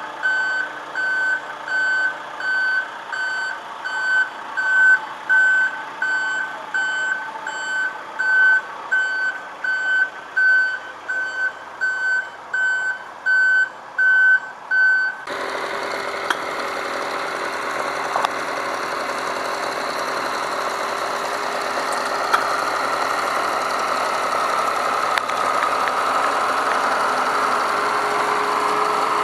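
A reversing alarm on heavy farm or transport machinery beeping in a steady, regular pattern over a running diesel engine. About halfway through it cuts to a tractor's diesel engine running steadily.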